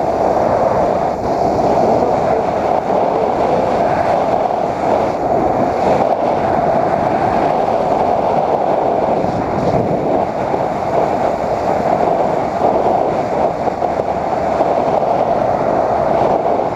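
Motorcycle riding at road speed: a steady wind rush on the microphone with the bike's engine and road noise beneath it.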